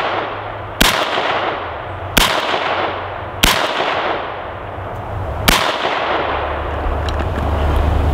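AR-15 rifle fired four single semi-automatic shots, the first three about a second and a half apart and the last after a pause of about two seconds, each trailing off in a long echo. After the last shot, a steady low rumble of wind on the microphone.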